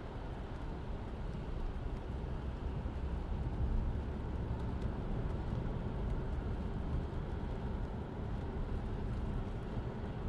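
Road and tyre rumble inside the cabin of a 2022 Lexus ES300h hybrid on the move: a steady low noise with no distinct engine note.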